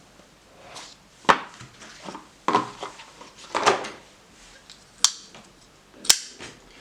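A NOKS Kondor M356 flipper knife being handled, with three sharp clicks (about a second in, then twice near the end) and softer rustling and scraping between them.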